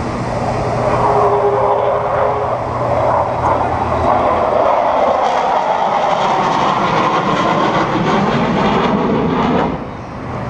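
Avro Vulcan XH558's four Rolls-Royce Olympus turbojets in a loud, steady jet roar as the bomber flies past. The roar swells about a second in and drops off suddenly near the end.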